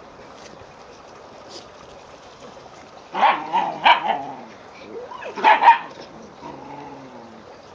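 Dog barking during play: two or three sharp barks about three seconds in, another pair about five and a half seconds in, and a softer drawn-out sound near the end.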